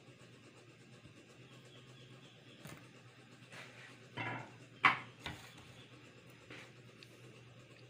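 A few short handling knocks and rubs over a faint steady low hum, the loudest a sharp knock about five seconds in.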